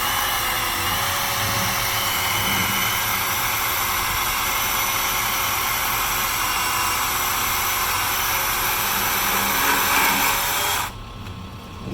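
Husqvarna 120i 40-volt battery chainsaw's electric motor and chain running steadily with a high whine, briefly louder just before it stops suddenly near the end.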